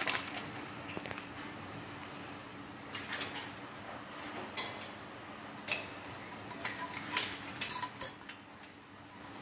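A small saucepan of water at the boil with a block of instant noodles cooking in it over a gas burner: a steady low bubbling hiss, with a few scattered light clicks and clinks.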